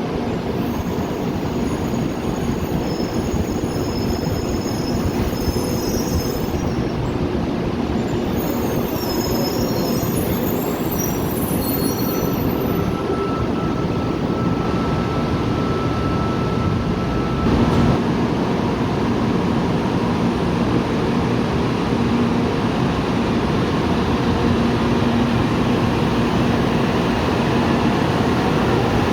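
A train running on rails, with high thin wheel squeals coming and going through the first half and a brief louder knock about eighteen seconds in.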